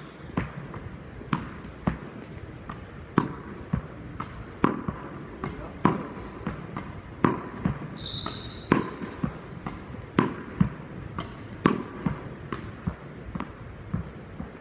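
Tennis wall practice: a Head Prestige Classic Pro PC600 racket strung with natural gut striking the ball, and the ball smacking the wall and bouncing on a wooden gym floor. A sharp impact comes about every second and a half, with lighter knocks between. Sneakers squeak briefly on the wood about two seconds in and again about eight seconds in.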